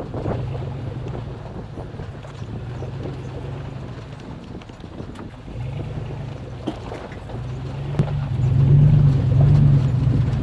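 Chevy Avalanche Z71's V8 engine running at low speed over rough off-road ground, with scattered knocks and clunks from the tyres and suspension on rocks. The engine gets louder about eight seconds in.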